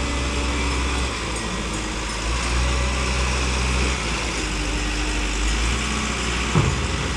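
Diesel engine of a compact wheel loader running steadily as the loader works, a strong low hum with a steady hiss over it. A short thump comes near the end.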